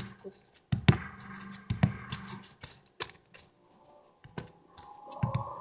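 Irregular clicks and taps of a knife cutting pieces of butter slime against a hard surface.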